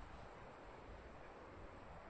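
Near silence: a faint, steady background hiss with a low rumble and no distinct sounds.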